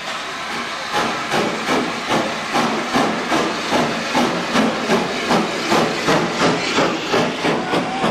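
Steam locomotive working under steam as it passes close by: a steady hiss of steam, then from about a second in a regular exhaust chuff, roughly two and a half beats a second, each beat with a hiss of steam.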